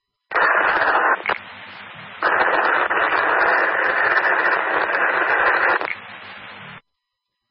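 Police radio scanner static: a short loud burst of hiss, then a longer one of about four seconds over a quieter carrier hiss. The channel is keyed open with no voice on it, and it cuts off abruptly when the squelch closes.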